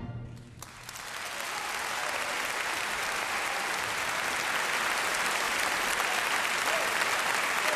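Concert-hall audience applauding. It breaks out about half a second in as the echo of the final chord dies away, builds over a couple of seconds, then holds steady.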